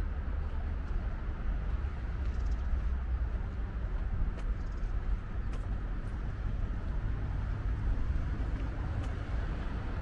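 Steady low rumble of distant city traffic.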